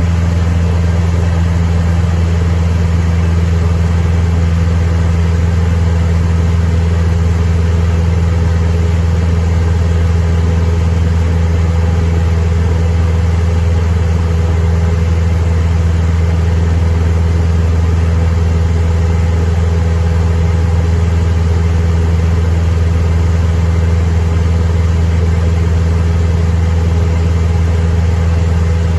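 Cessna 172M's four-cylinder Lycoming O-320 engine and propeller running at a steady, unchanging drone, heard loud from inside the cabin.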